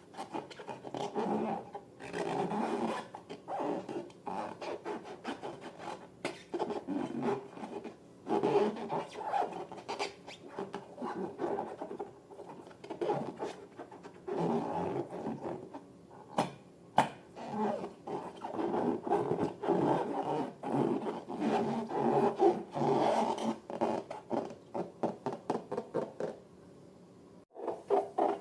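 Latex balloons and slime being handled: a run of irregular rubbing squeaks with sticky clicks and crackles, pausing briefly near the end.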